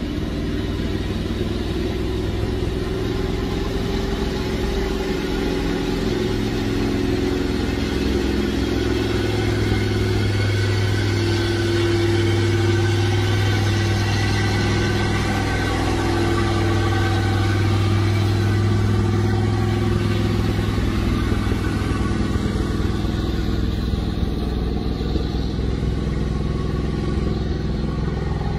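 Diesel engine of a loaded logging truck running as it comes down a dirt track, with a steady low engine drone that grows louder as the truck passes close by in the middle and eases a little near the end.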